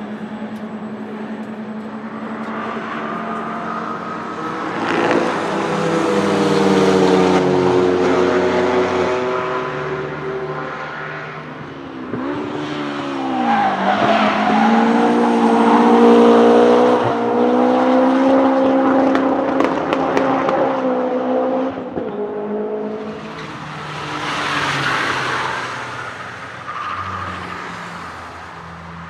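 Track-day cars running at speed on a circuit, their engine notes rising and falling as they pass, with three louder passes.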